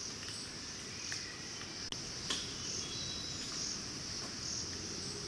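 Steady high-pitched insect chorus, swelling gently about twice a second, with a few faint short chirps and a couple of faint clicks about two seconds in.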